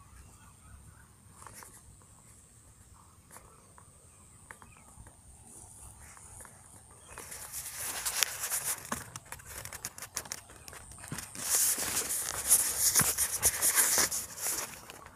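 Dry grass and straw crunching and rustling, starting about seven seconds in and loudest near the end, as someone walks over the dry bank.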